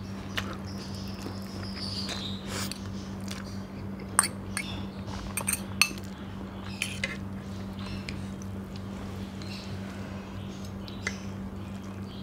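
Close-miked noodle eating: a slurp of a forkful of noodles early on, chewing, and several sharp clinks of a fork against a plate, over a steady low hum.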